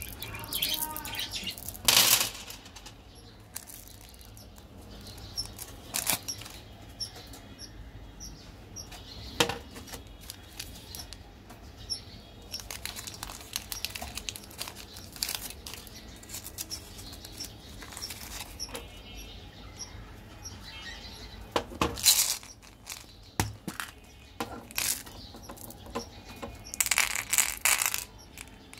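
Hard candy-coated chocolate buttons clicking against each other as hands handle them, and a foil-lined chocolate bar wrapper crinkling as it is torn open. The sounds come as scattered sharp clicks, with a dense burst of crinkling near the end.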